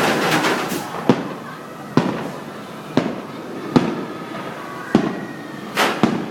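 Fireworks bursting: a crackling burst at the start, then sharp single bangs about once a second.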